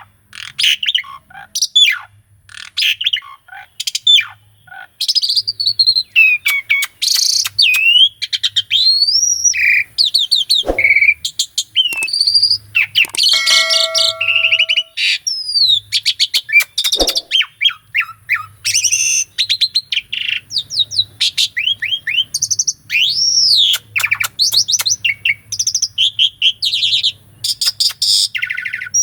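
Asian pied starling singing a long, varied song: clear whistles that rise and fall, rapid trills and sharp clicking notes, run together with only brief pauses.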